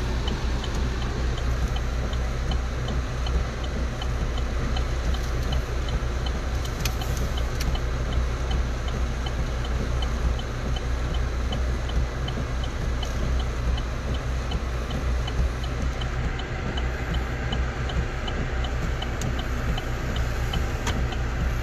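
Inside a car's cabin: a steady hum of the engine and road, with the indicator flasher clicking evenly about twice a second.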